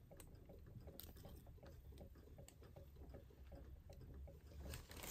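Near silence: room tone with faint small ticks and rustles, several a second, from a plush toy being handled.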